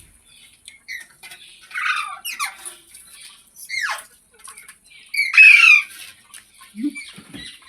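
Green parrot squawking: a handful of harsh, screechy calls, several of them sliding steeply downward in pitch, the loudest and longest about five seconds in.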